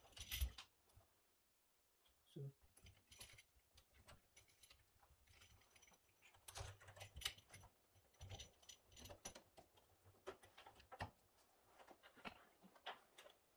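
Faint, scattered small clicks and metallic jingles of keys and door-lock hardware being handled.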